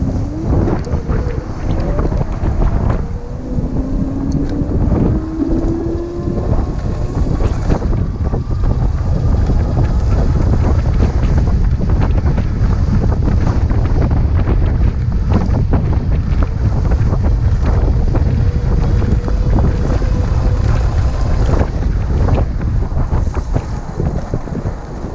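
Heavy wind buffeting on the microphone of a handlebar-mounted action camera as an e-bike rides along a rough lane. Under it, the whine of the 250 W rear hub motor rises slowly in pitch several times, with knocks and rattles from the bike over bumps.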